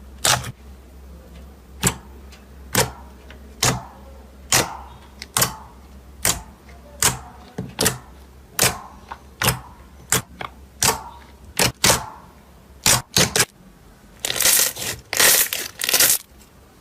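Slime being pressed and played with, giving sharp popping clicks about once a second, then a run of denser crackling near the end.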